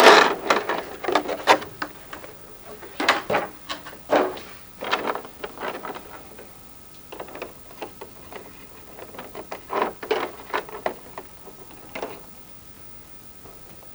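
Hands handling a plastic Transformers figure and its packaging: a loud rustle at the start, then scattered clicks and short rustles that thin out near the end.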